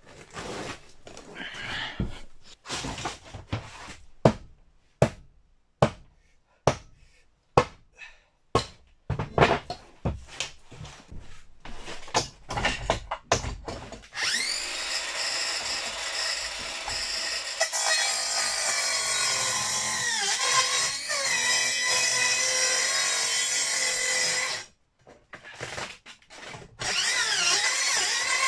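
A series of sharp knocks on wood, about one to two a second, then a handheld power tool cutting wood for about ten seconds, its pitch dipping under load. It stops briefly, a few knocks follow, and it starts again near the end.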